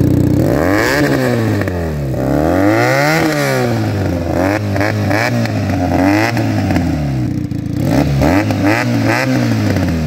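Benelli TNT 300's 300 cc parallel-twin engine with an Akrapovic slip-on exhaust being revved while the bike stands still. It goes through two slow revs up and back down, then a string of quick throttle blips.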